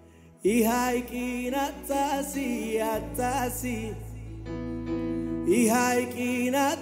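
Male gospel singer singing a worship song into a microphone, with wavering held notes over a sustained low accompaniment. The voice comes in about half a second in and pauses briefly on a held chord in the middle.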